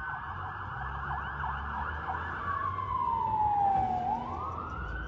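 Fire truck's electronic siren running code 3 as the truck pulls away. It sounds a rapid yelp, then switches to a slow wail that falls and turns back up about four seconds in, over a low engine and road rumble.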